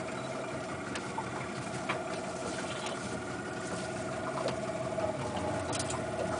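A glass-bottom boat's engine running steadily at low speed, a constant droning hum, with a few faint clicks and taps from the boat.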